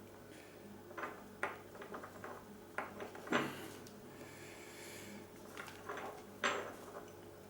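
Small metal handling sounds: scattered clicks, scrapes and light knocks as a PL259 connector is worked onto RG58 coax by hand. The two loudest knocks come about a third of the way in and near the end.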